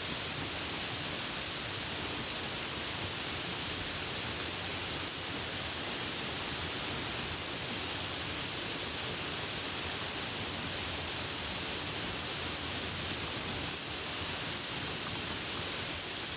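Steady rain, an even hiss with no thunder.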